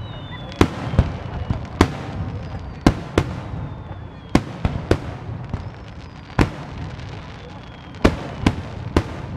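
Aerial fireworks shells bursting overhead: about a dozen sharp bangs in quick, irregular succession over a low rumble. Faint falling whistles sound between the bangs.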